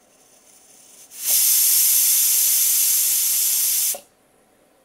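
Mini stainless-steel pressure cooker letting off steam under pressure: a faint hiss builds over the first second, then a loud, even blast of hissing steam for about two and a half seconds cuts off abruptly.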